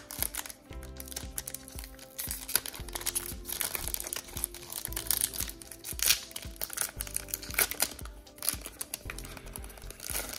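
Foil booster-pack wrapper being torn open and crinkled by hand, a dense run of crackling throughout, over background music.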